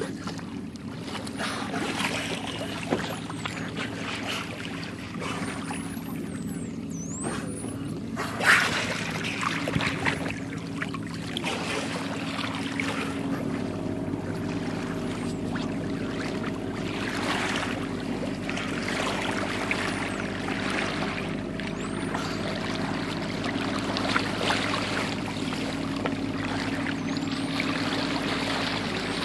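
Water rushing and splashing along the hull of a boat under way, over a steady low engine hum. A sharper splash comes about eight seconds in, and a few faint high whistling glides are heard in the first several seconds.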